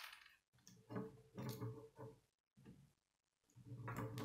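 Plastic K'nex rods and connectors clicking and rattling as they are handled and snapped together, in several short bursts with brief pauses between.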